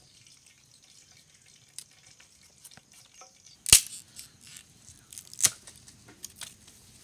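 A green, moss-covered stick being split and broken: scattered small crackles, then two sharp loud cracks a little under two seconds apart, the first the loudest.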